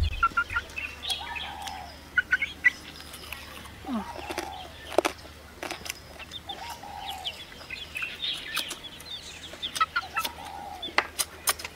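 Chewing and gnawing on a spare rib, with sharp mouth clicks and smacks scattered throughout. Chickens cluck in the background, several short calls a few seconds apart, with small birds chirping.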